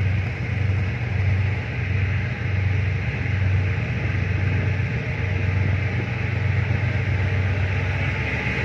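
Tugboat engine running steadily under way, a low throbbing hum with a steady hiss over it.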